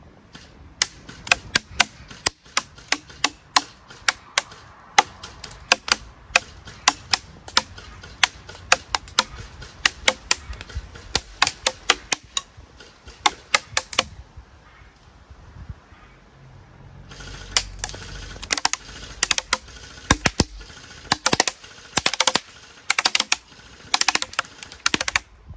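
6 mm BBs from an airsoft carbine striking a paper target on a wooden pallet: an irregular string of sharp cracks, a few a second, which stops about 14 seconds in and starts again about three seconds later.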